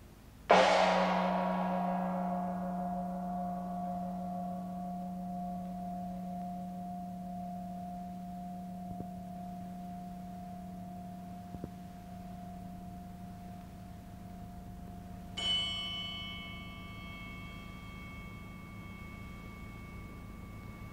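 Music of struck metal percussion: a loud gong-like stroke about half a second in, ringing with many tones and dying away slowly, then a second, quieter and higher bell-like stroke a little past the middle that also rings on.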